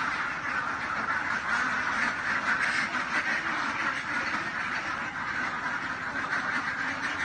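A flock of ducks quacking together without pause.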